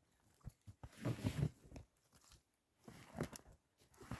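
Crunching and rustling handling noises in a few short, irregular spells.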